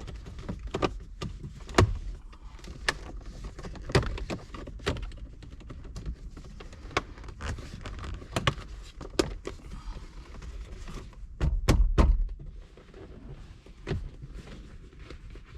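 Plastic car interior trim being handled and fitted back around the shifter: scattered sharp clicks and knocks, with a heavier thump about twelve seconds in.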